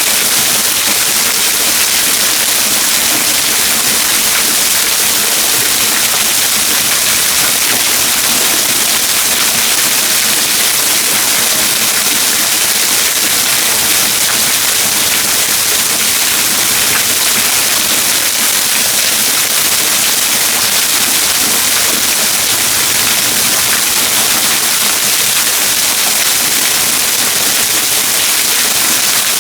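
Waterfall splashing, a loud, steady rush of falling water with no change.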